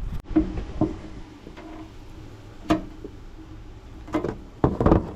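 Scattered knocks and clinks of metal parts being handled as a coffee maker is taken apart, with a louder run of knocks near the end.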